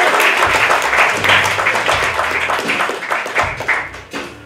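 Audience applauding, the clapping thinning out and fading away about four seconds in.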